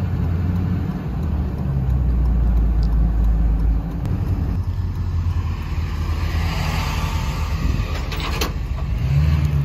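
Pickup truck driving at low speed, engine and road noise heard from inside the cab. The engine note drops about four seconds in and rises again near the end.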